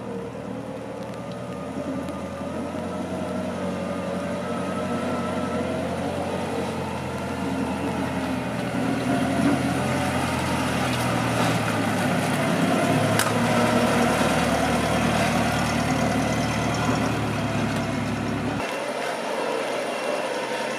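Balkancar Record MPR-20 off-road utility truck driving along a gravel track, its steady motor hum growing louder as it comes closer. Near the end the low hum cuts off abruptly.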